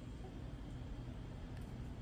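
Faint steady room tone with a low hum, with no distinct clicks or knocks.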